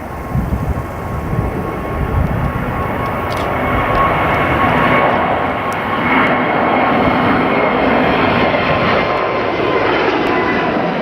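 Jet airliner's engines running loud, swelling over the first few seconds and then holding steady, with a thin steady whine over the roar.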